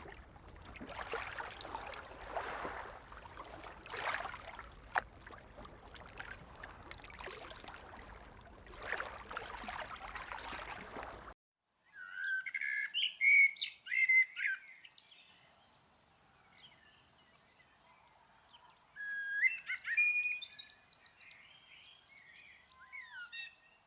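Steady rushing water noise with swells, which cuts off abruptly about halfway through. After a moment of silence, songbirds chirp and whistle in short bursts of song, in two bouts.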